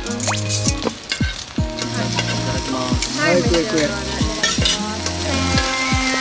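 Slices of beef tongue sizzling on a hot grill plate, a steady frying hiss with a few light clicks of tongs. Background music with a steady beat plays over it.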